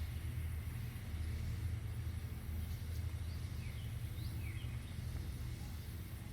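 Outdoor ambience: a steady low rumble, with a few short, falling bird chirps in the middle.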